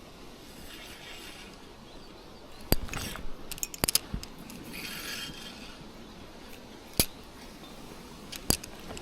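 A small mechanism being worked: two short whirring runs and several sharp clicks, over a steady outdoor hiss.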